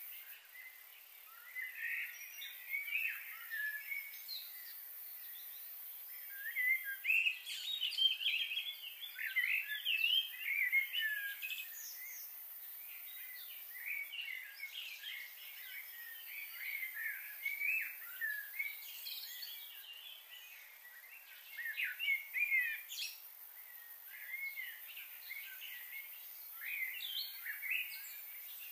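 Small birds chirping and twittering in a busy, overlapping chorus that swells and thins, over a steady high hiss.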